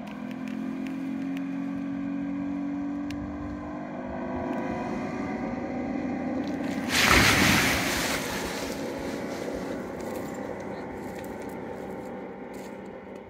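Motorboat engine running and rising in pitch as it takes up the tow for a paraglider launch, then running steadily. About seven seconds in, a loud rush of noise lasts a second or so.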